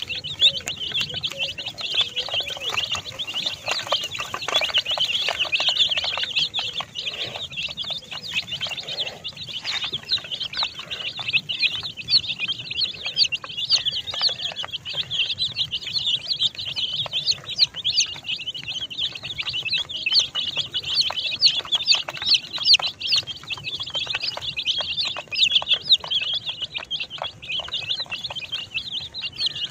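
A flock of baby chickens peeping, many high, short calls overlapping without a break.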